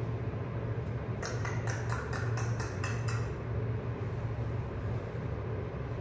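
A quick run of about eight short scratchy rustles at the covered wire bird cage, starting about a second in and lasting about two seconds, over a steady low hum.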